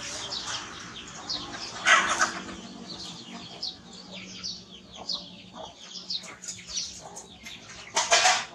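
Small birds chirping busily, many short, quick, falling chirps overlapping. About two seconds in and again near the end, two louder, brief sounds stand out above the chirping.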